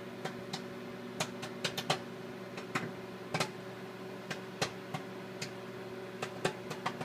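Popcorn kernels popping in a bag inside a running microwave oven: irregular sharp pops, about three a second, over the oven's steady hum. The popping is still going strong, in the middle of the batch.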